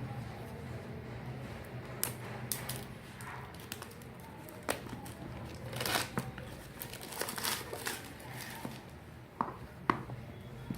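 Packaging being handled: plastic crinkling and tearing, with scattered sharp clicks and taps, two of them sharper near the end. A faint steady low hum lies underneath.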